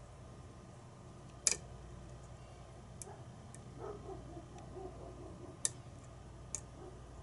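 Lock pick and tension wrench working the pins of a challenge lock: a sharp metallic click about 1.5 s in, then a few fainter clicks and light scratchy rattling of the pick in the keyway.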